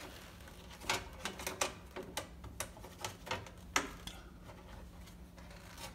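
Number plate being pushed and worked into its tight holder: a series of light, irregular clicks and taps, the sharpest a little before four seconds in.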